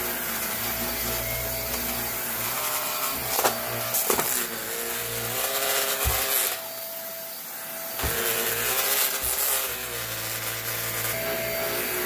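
Shark upright vacuum cleaner running on carpet. Its motor hum wavers and shifts in pitch through the middle as the head is worked back and forth, with a few short knocks and rattles.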